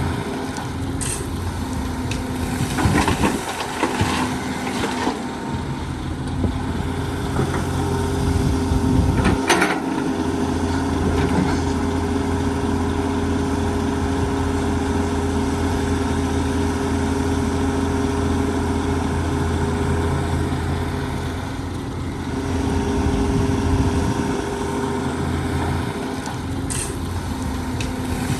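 Excavator's diesel engine running steadily, with a few short clanks and knocks, the sharpest about a third of the way in.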